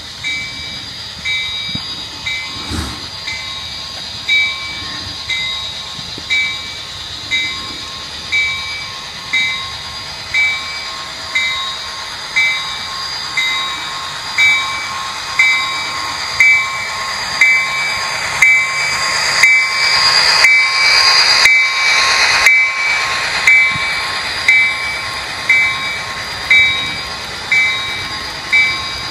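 Onboard sound decoder of an HO scale Athearn SD40R model diesel locomotive playing through its small speaker: an electronic diesel engine drone with a bell ringing about once a second. It grows louder as the locomotive passes close by, loudest about two-thirds of the way in, then eases off as the cars follow.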